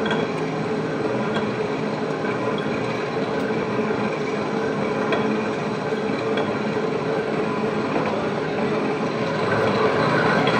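Commercial stand mixer running steadily, its motor and gears making a constant hum as the dough hook kneads bread dough in a steel bowl. A faint tick repeats about every one and a quarter seconds, and it grows a little louder near the end.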